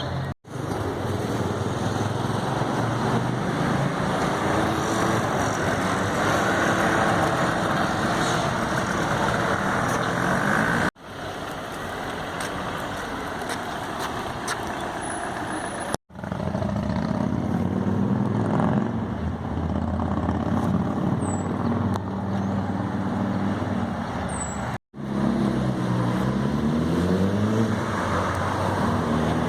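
Motorcycles with loud exhausts passing along a city street, engines revving up and down through the gears, over a steady hiss of traffic. The sound is split into four takes by sudden cuts.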